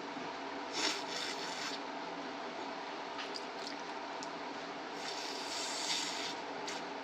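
Congested nose from a head cold, with two noisy nasal rushes of about a second each, one about a second in and one past the middle, over a steady hum.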